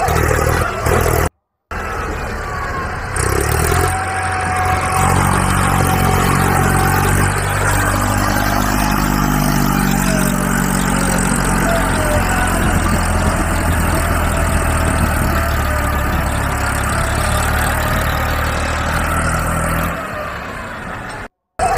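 An engine runs steadily with a low, even sound and a faint wavering whine above it. The sound cuts out briefly about a second in and again near the end.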